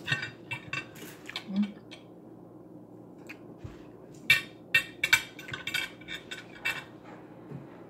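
Metal fork clinking and scraping against a plate in quick runs of sharp taps: one cluster in the first second or two, a louder one from about four seconds in to nearly seven.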